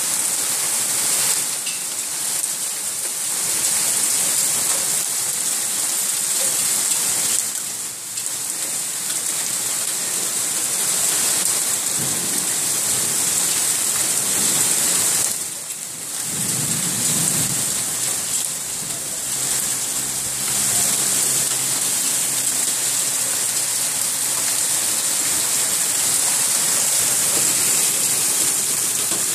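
Heavy rain mixed with hail pouring down steadily, with a low rumble about halfway through.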